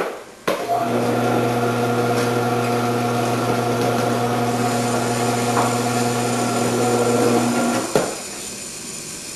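Omcan HLC 300 vegetable cutter's electric motor running steadily while grating cheddar cheese through its grating disc. It starts with a click about half a second in and stops with a click about 8 seconds in.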